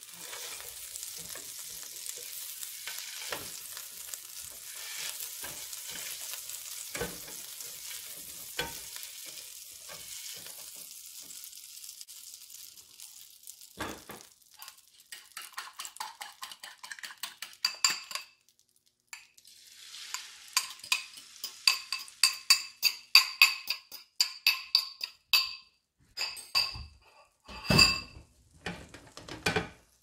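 Butter sizzling in a hot frying pan, a steady hiss with a few soft knocks of a silicone spatula spreading it. About halfway through the hiss fades and quick runs of ringing clinks take over, a utensil knocking against a bowl as the banana-and-egg batter is readied and poured into the pan.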